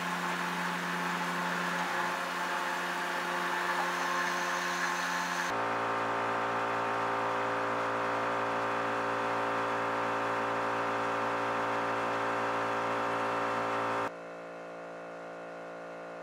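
CNC milling machine spindle running steady while a small carbide end mill cuts Damascus steel, cleaning out the blade slot of a knife guard; a steady whine with several tones over a hiss. The sound changes abruptly about five and a half seconds in, and near the end it drops to a quieter steady hum.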